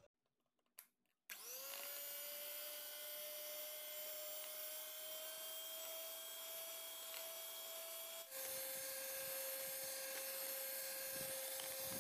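Electric hand mixer switched on about a second in, its motor whine rising as it spins up and then running steadily as the wire beaters whip eggs, sugar and oil. After about eight seconds the whine drops to a slightly lower pitch and runs on steadily.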